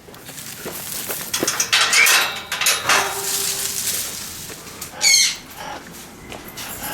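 Aviary parrots flapping their wings in a flurry of rapid beats, with a short squawk about five seconds in.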